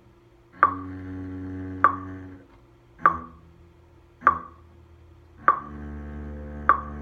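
Double bass bowed softly against a metronome clicking about every 1.2 seconds (50 beats per minute): a held note, two short detached notes, then another long note from about five and a half seconds in.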